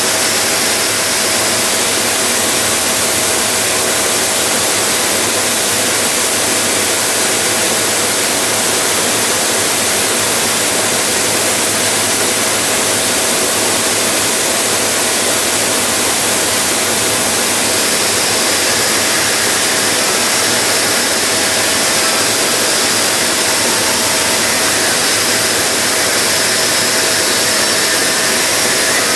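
Wet tube polisher running with a metal tube feeding through its polishing heads: a loud, steady hissing rush with a constant humming tone underneath.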